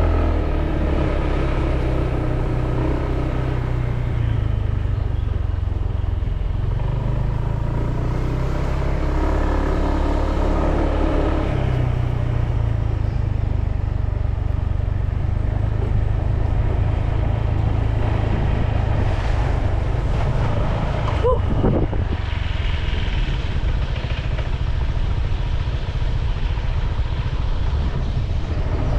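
Honda PCX 150 scooter's single-cylinder engine running under way, with steady road and wind noise, as the scooter is ridden. A brief whine rises and falls about two-thirds of the way through.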